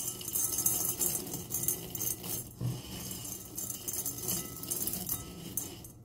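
A hand rummaging through dried rosemary needles in a glass bowl: a dense, crisp rustling and crackling of the dry leaves that stops just before the end.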